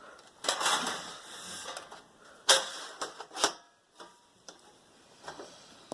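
An opened Amstrad Sky box being handled and turned around on a surface: a scraping rustle, then two sharp knocks about a second apart, the first the loudest, and a few light clicks.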